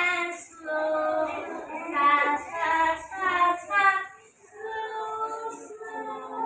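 A group of young children singing a song together in short phrases, with a brief pause about four seconds in.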